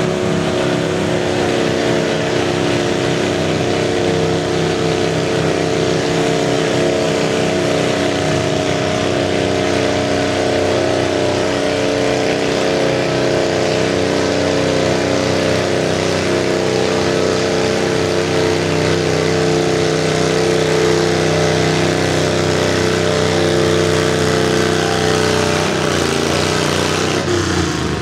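Stock V-twin garden tractor engine running at steady high revs under load, pulling a weight sled; the pitch holds level and wavers slightly near the end.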